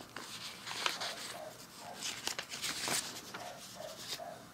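Paper dyno sheets and clear plastic sheet protectors rustling and sliding against each other as pages are turned, in several short scrapes and crinkles.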